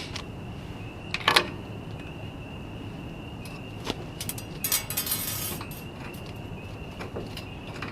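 Metal clinks and a brief rattle of a wire coat hanger and brake caliper being handled as the caliper is hung up off the suspension: a sharp clink about a second in, another near four seconds, and a short jangling rattle around five seconds.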